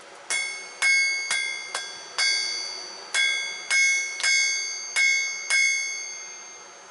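Hammer blows on a steel anvil while forging a blade from an old file: about ten strikes at uneven intervals, each ringing out with a high bell-like tone that dies away.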